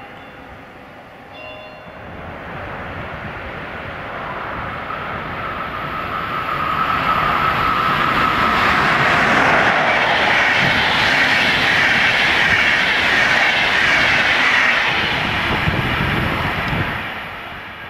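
A DB Class 115 (ex-E10) electric locomotive hauling an InterCity train of passenger coaches passes by. The sound grows steadily louder as it approaches, with a brief steady whine just before the loudest part. The wheels then run loud on the rails for several seconds as the coaches go by, and the sound dies away near the end.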